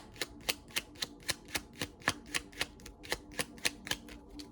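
A deck of tarot cards being shuffled by hand, a steady run of sharp clicks about four a second.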